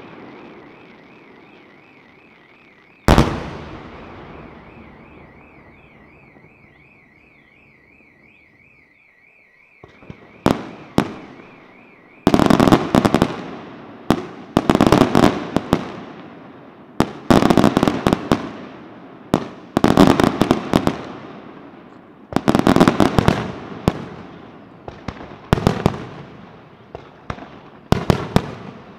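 Aerial fireworks display: a single heavy shell burst about three seconds in, its bang echoing away, then from about ten seconds a fast run of shell bursts and crackling salvos, one every couple of seconds.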